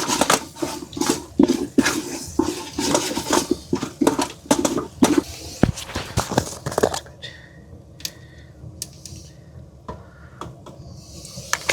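A utensil scraping and clinking against a cooking pot as a flour roux is stirred in, busy for about seven seconds and then dropping to a few scattered taps.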